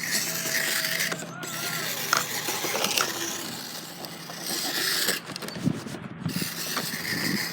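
Remote-control car's drivetrain whirring and grinding as it is driven in bursts, with a short break about a second in and a longer one after about five seconds.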